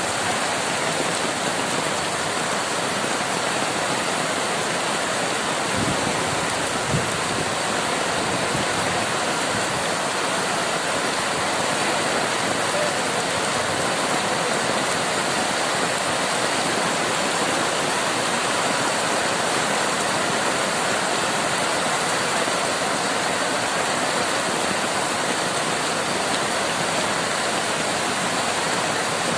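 Heavy monsoon rain pouring down in a steady, dense hiss, with one brief low thump about seven seconds in.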